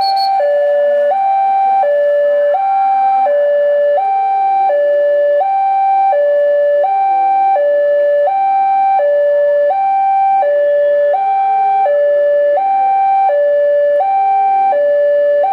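Railway level crossing warning alarm sounding a steady electronic two-tone hi-lo signal, each tone lasting a little under a second, warning that a train is approaching.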